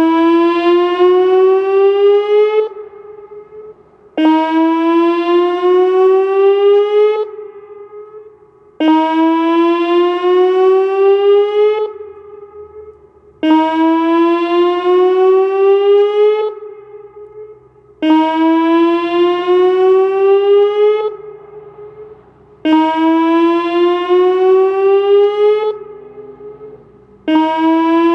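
Whelen 2806 electronic outdoor warning siren sounding its whoop tone during a warning-system test: a loud pitched sweep that rises for under three seconds, cuts off, and repeats about every four and a half seconds, seven times, with a fading echo in each gap.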